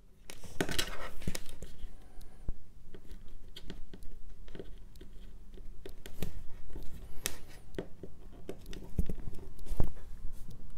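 Handling noise of multimeter test leads and their cables: brief rustling and scraping with scattered light clicks and taps as the probes are moved and set on circuit board contacts, the longest rustle about half a second in.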